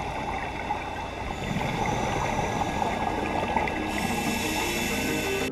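Underwater ambience picked up by a camera in its waterproof housing on a coral reef: a steady rushing noise of the water, strongest in the low range.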